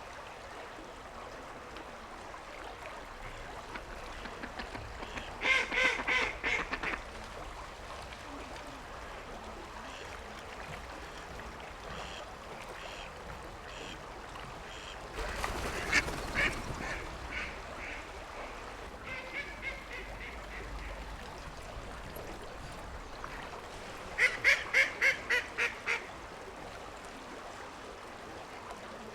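Ducks quacking in quick runs of rapid quacks, loudest about six seconds in and again near the end, with quieter runs in between, over a steady background hiss.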